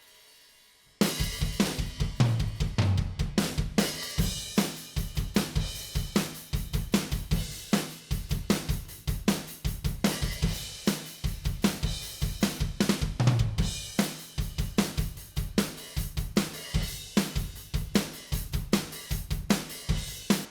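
Recorded drum kit played back, with kick, snare and toms blended with triggered replacement samples, under cymbals and hi-hat: a steady groove that starts about a second in and cuts off suddenly at the end.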